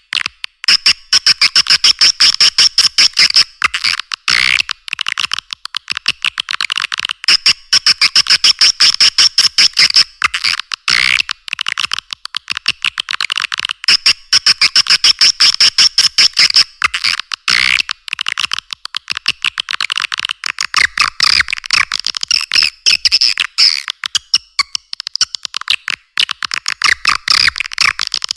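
Recorded swiftlet calls played as a lure for a swiftlet bird house: rapid trains of high chirps, in dense phrases that recur every three to four seconds. The sound is thin, with no low end at all.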